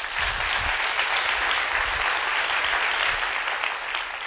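Audience applauding: dense, steady clapping that begins to fade near the end.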